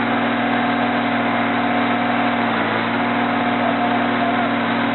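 Heavy tractor-trailer's diesel engine running steadily at a low, even pitch.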